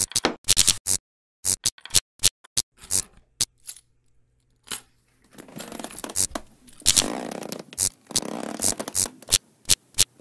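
Cartoon sound effects: a run of quick sharp clicks and taps, then from about halfway through a longer scratchy scraping sound broken by short spikes.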